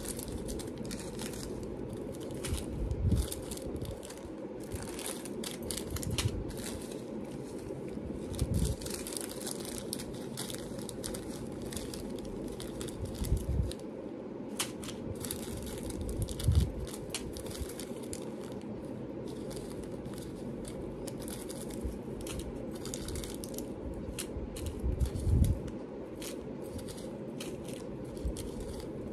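Small plastic bags of jewelry findings crinkling and rustling as they are handled and sorted, with a handful of dull thumps as bags and containers are set down, over a steady low hum.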